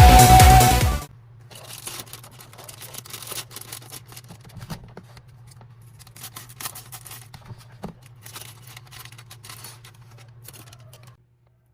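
Electronic background music cuts off about a second in. Then come faint rustling and small scattered clicks, like packaging and small plastic parts being handled, over a low steady hum, until it goes quiet near the end.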